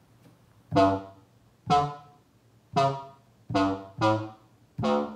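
A 'wub' synth hit sampled from a Teenage Engineering Pocket Operator PO-32 Tonic, played back six times from a 1010music blackbox sampler's touchscreen keyboard on different keys. Each note is a bright, pitched tone that starts sharply and fades within about half a second.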